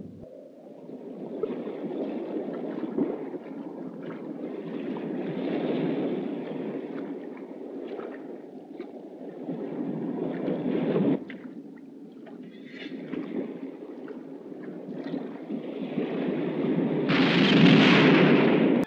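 Sea surf washing in and out, swelling and fading in waves, with the loudest surge near the end.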